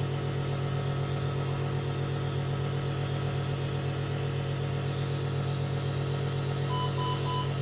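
Steady motor hum, typical of a nebulizer's air compressor running. Near the end, three short, evenly spaced electronic beeps sound from a monitor.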